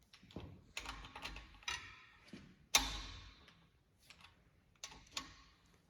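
Hand tools and a 9/16 socket clicking and clanking on metal while the oil pump bolts of a Mopar 318 small block are run down before torquing. The clicks are irregular, with one sharp clank about three seconds in that rings briefly.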